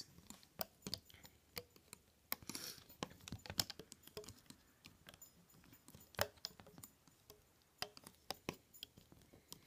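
Faint, irregular light clicks and taps of a metal looping hook against the clear plastic pegs of a Rainbow Loom as rubber bands are looped, with a brief soft rustle about two and a half seconds in.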